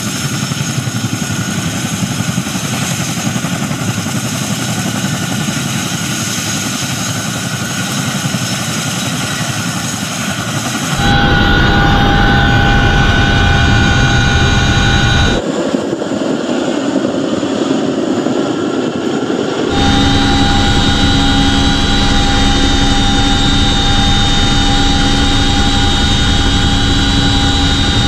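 CH-47 Chinook tandem-rotor helicopter running, its twin turboshaft engines whining under the rotor noise. The sound changes abruptly several times; from about 11 s in it is heard from inside the cargo cabin, where steady high-pitched tones from the engines and transmissions stand out.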